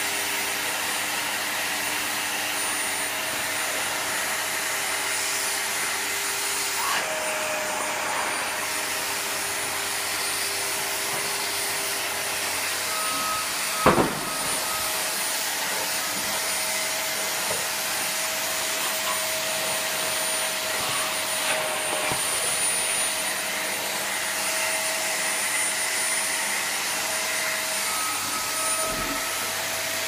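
Vacuum cleaner running steadily, with a high whine over its airflow noise. About halfway through there is a single sharp knock as the vacuum bumps into a couch table.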